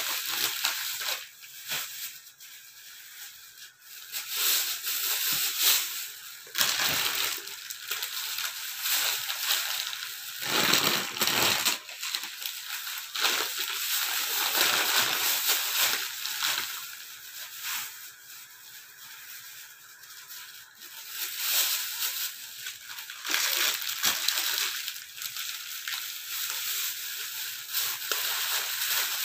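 Thin plastic bags and plastic food packaging rustling and crinkling in irregular bursts as grocery packs are pushed into them and handled.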